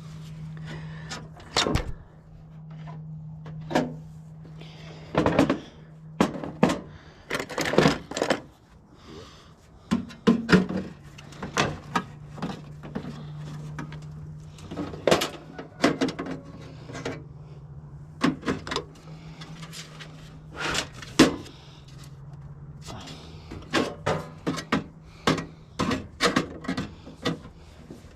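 Irregular clanks, knocks and clatters of water heater parts being moved and worked loose during a scrap teardown, over a steady low hum.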